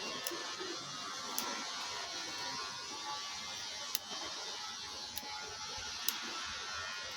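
A small machine running steadily with an even, high hiss, with a few sharp ticks over it.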